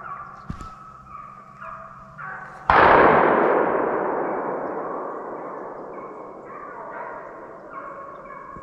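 Hunting hounds baying, and a single gunshot about three seconds in whose report rolls and fades away over several seconds.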